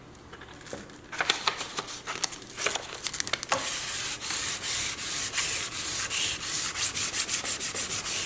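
Hand leveling of a cocobolo fingerboard with flush-set copper frets: an abrasive rubbing on the wood. A few separate scrapes start about a second in, then quick, steady back-and-forth rubbing from about four seconds in.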